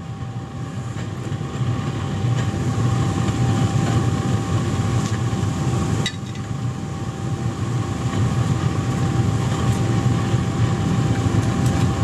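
Waste-oil burner firing the brick furnace: a steady roar of burning oil and blower air, with a thin steady whine running through it.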